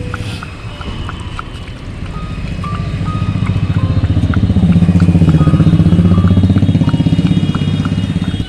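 A vehicle engine passing close by, its fast, even pulsing growing louder towards the middle and then fading. A light melody of short high notes plays along with it.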